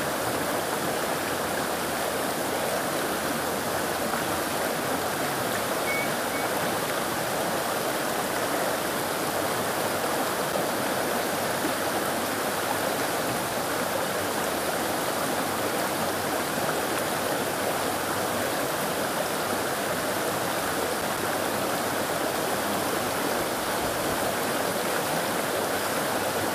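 Shallow river water rushing over a riffle, a steady, unbroken noise.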